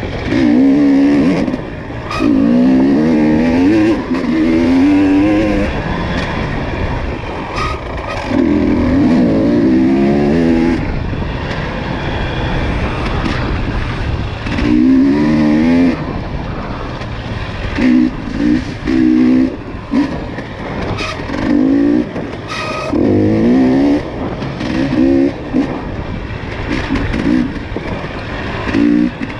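ATV engine revving in repeated bursts as the throttle is blipped on and off, the pitch rising and falling with each burst, about ten times. Knocks and rattles from the machine bumping over rough trail are heard throughout.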